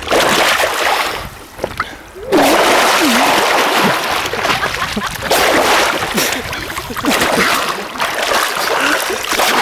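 River water splashing and churning right at the microphone in loud, irregular surges, with a brief lull about two seconds in.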